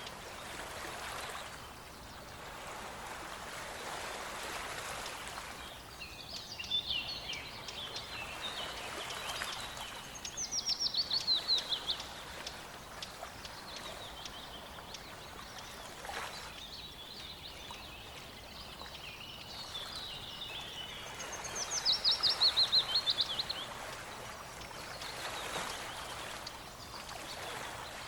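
Running stream water with songbirds singing over it. Twice, about ten seconds in and again about twenty-two seconds in, a bird gives a loud song of quick notes falling in pitch, with quieter chirps and twitters in between.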